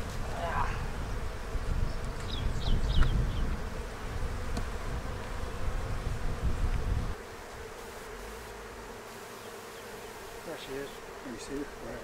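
Honeybees buzzing around an open hive, a steady hum, with a low rumble under it that stops abruptly about seven seconds in.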